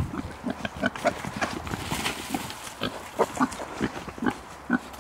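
Pigs grunting as they run loose, many short grunts coming in quick, irregular succession.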